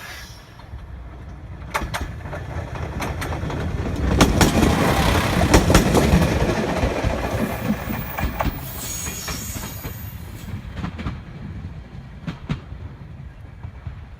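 Steam-hauled train of locomotive C12 66 and three 50-series coaches passing close by, its wheels clicking over the rail joints. It grows louder to a peak about four to seven seconds in, then fades away.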